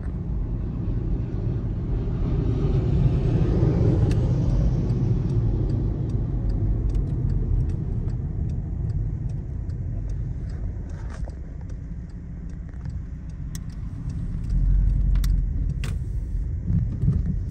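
Cabin noise of a moving car: a steady low road-and-engine rumble that swells about three seconds in and again near the end, with a few light clicks scattered through it.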